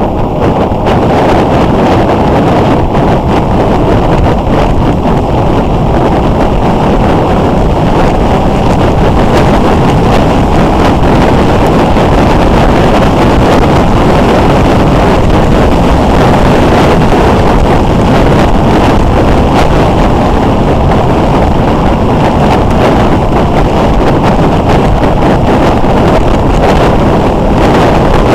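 Loud, steady wind rushing over the microphone of a camera on a moving motorcycle, with the motorcycle's running and road noise beneath it.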